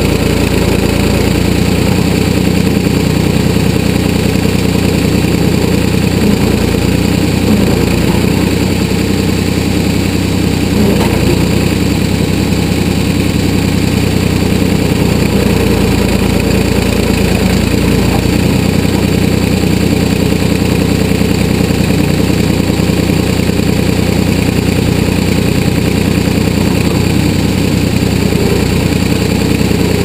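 1981 Ford 555 backhoe's engine running steadily as the boom and ditching bucket dig into garden soil.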